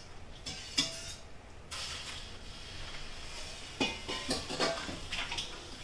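Kitchen tap turned on about two seconds in, water running steadily into the sink, with a few clinks and knocks of dishes and utensils.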